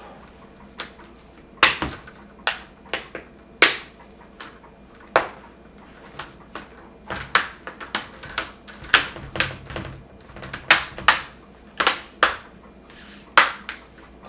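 Plastic laptop screen bezel being pressed back on, its clips snapping into place one after another: a long run of irregular sharp plastic clicks.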